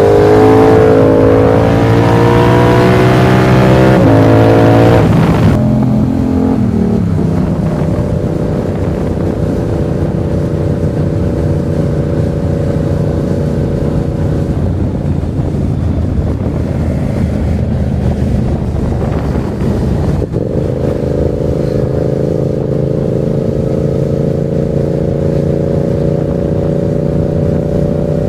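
Yamaha MT-07's parallel-twin engine under way: revving up with two sudden drops in pitch at gear changes in the first few seconds, then running at fairly steady revs. Midway the engine note fades into a rush of noise for several seconds, then it pulls steadily again.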